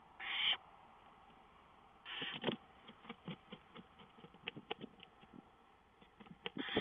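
Barn owls in a nest box: three short raspy hisses, near the start, about two seconds in and at the end, with scratching and shuffling clicks between them as an owl moves about on the box floor.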